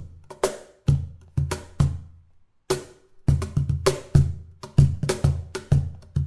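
MBG Galaxy cajon played by hand: deep bass strokes mixed with sharp, bright slaps in a steady groove. About two seconds in the playing stops for under a second, then comes back with a single hit and picks up the busy rhythm again.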